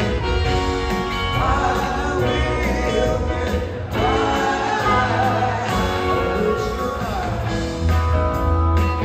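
A live rock band playing loud, full music on electric guitar, drums and bass, with horns and strings. A wavering, gliding lead line rides on top through the middle of the passage.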